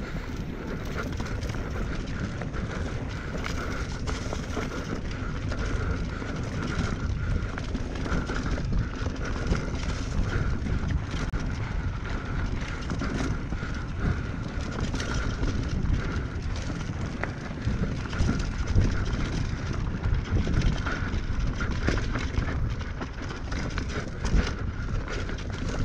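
Mountain bike riding down a trail: a steady rush of wind and tyres on dirt with scattered rattles of the bike over rough ground, and a steady high buzz throughout.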